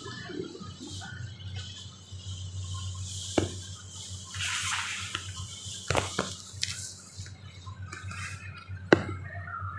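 Cloth blanket being handled and folded back on a hospital bed: brief rustling of the fabric, with about four sharp clicks or knocks, the loudest near the end, over a steady low hum.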